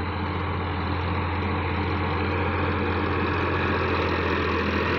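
Sonalika DI-50 RX tractor's diesel engine running steadily under load while pulling a rear rotary tiller through dry soil. It grows slightly louder as the tractor comes closer.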